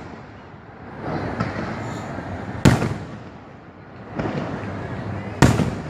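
Fireworks shells bursting overhead: two sharp booms about two and a half seconds apart, each trailing off in an echoing rumble, with softer crackling between them.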